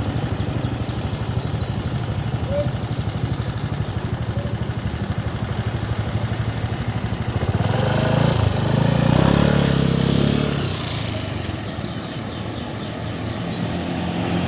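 Roadside traffic: an engine idles close by with a steady hum. About eight seconds in, a heavier vehicle passes, its engine note rising and then falling away over some three seconds.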